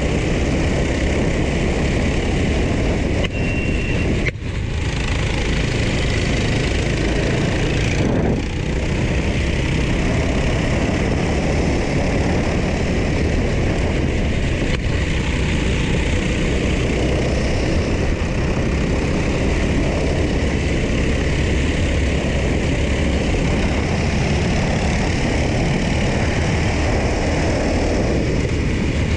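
Go-kart engine running hard at racing speed, heard onboard with steady wind rush; it dips briefly about four seconds in and again about eight seconds in.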